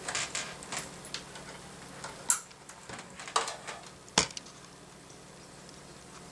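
Small plastic clicks and rustling as a gray phone cord's modular plug is handled and pushed into the TEL LAN port of a NURIT 8320 card terminal, with one sharp click about four seconds in.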